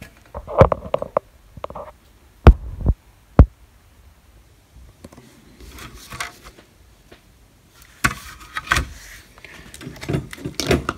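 Handling noise on a workbench. Several sharp knocks and taps come in the first few seconds, the loudest about two and a half seconds in. Scraping and rustling with more taps follow in the last few seconds.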